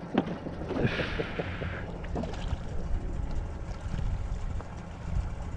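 Wind buffeting the microphone and water lapping around a small fishing boat, with a few light knocks and a short hiss about a second in.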